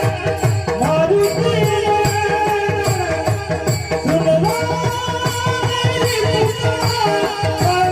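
Varkari kirtan devotional singing: a man sings long, high held notes that glide between pitches, over fast hand-drum strokes and jingling hand cymbals.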